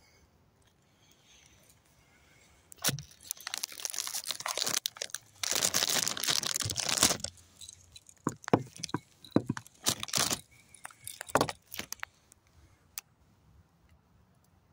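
Plastic food packaging crinkling and crackling as it is handled, starting about three seconds in, densest for a few seconds, then in separate crackles that stop near the end.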